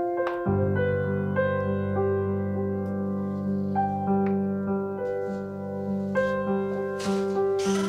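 Background piano music, a slow melody over held low chords that come in about half a second in. A short burst of noise rises under it about seven seconds in.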